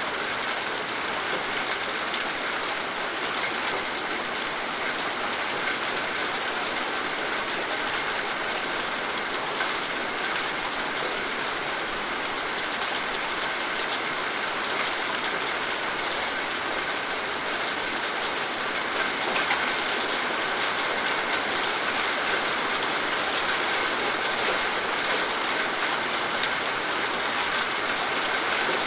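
Steady rain falling, a dense, even hiss of drops hitting a surface, with scattered individual drop ticks.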